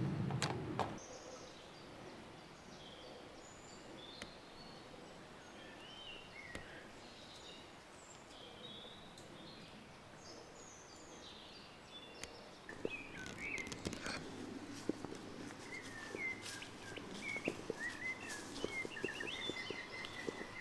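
Woodland ambience: small songbirds chirp and sing in short scattered phrases over a low outdoor hush. From about two-thirds of the way in, irregular sharp ticks and crackles join in, and the bird notes come more often.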